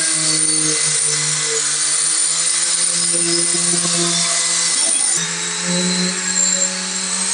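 Electric power sander running steadily on the wooden hull, a motor hum with a hiss of abrasive on wood; the pitch wavers slightly as pressure on the tool changes. A short click about five seconds in.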